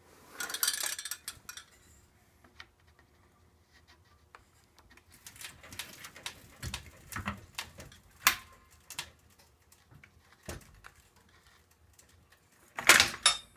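Scattered metallic clinks and knocks from a floor jack and a Jeep Wrangler LJ's rear axle and coil spring as the axle is lowered. There is a short rustling burst just after the start and a louder clatter near the end.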